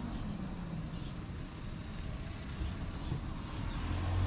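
Insects calling in a steady, high-pitched drone over a low background rumble.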